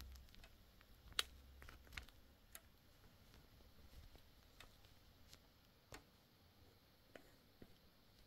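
Near silence: faint room tone, broken by a few faint, scattered clicks.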